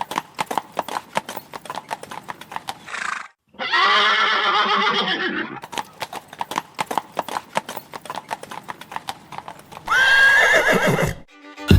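Horse hooves clip-clopping throughout, with a horse whinnying about four seconds in and again near the end.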